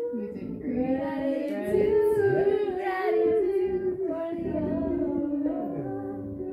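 Wordless singing: a voice holding long notes and sliding slowly between them in a slow melody.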